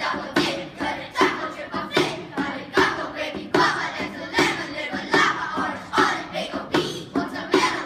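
Children's voices singing or chanting a rhythmic group piece over a steady beat of sharp percussive hits about twice a second.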